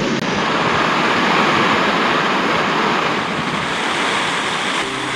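Strong wind rushing and buffeting against the tent, a loud steady roar of noise that swells a little and then eases.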